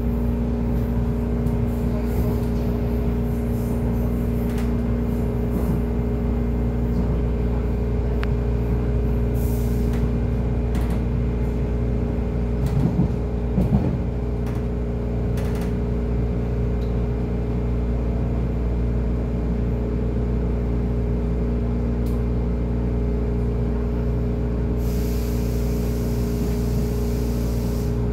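Refurbished Metro-Cammell electric train of the East Rail Line running, heard from inside the carriage: a steady low rumble of wheels on track with a constant hum, a few louder knocks about halfway through, and a hiss near the end.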